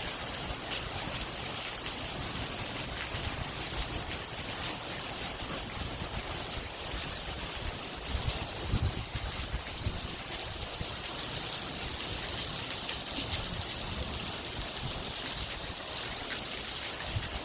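Heavy rain pouring down: a steady, even hiss of falling water.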